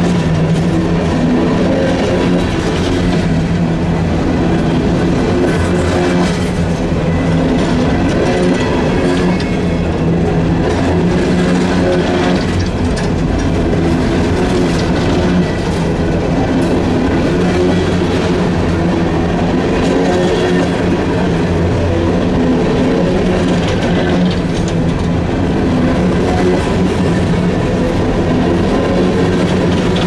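Empty steel coal cars of a freight train rolling past close by, their wheels rumbling and clattering steadily on the rails.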